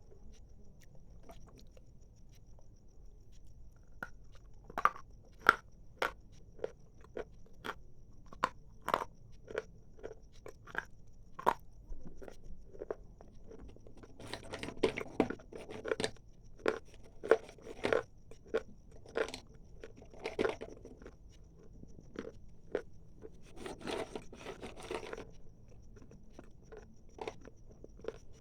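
Hard, dry clay chalk being bitten and chewed: single sharp crunches starting about four seconds in, then two denser spells of rapid crunching chews in the second half.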